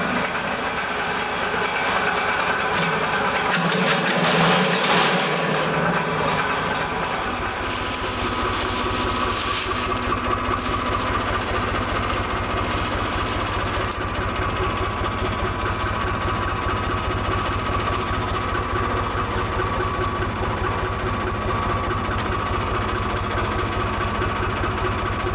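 Small tractor's engine running steadily with an even, rapid knocking pulse and a held whine. During the first several seconds a louder, rougher noise with a high hiss rises and falls over the engine.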